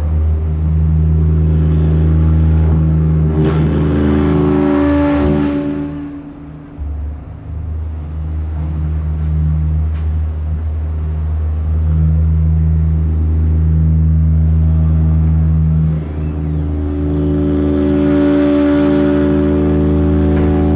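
Drum feedback: miked drums feeding back through amplification into a sustained low drone. Stacked higher tones swell in, louder and brighter, about four seconds in and again near the end, with a short drop in level around six to seven seconds.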